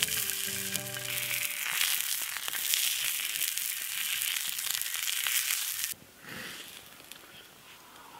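Sausages sizzling in a flat steel pan over a campfire, a dense steady hiss that cuts off suddenly about six seconds in. The tail of some music fades out during the first second or so.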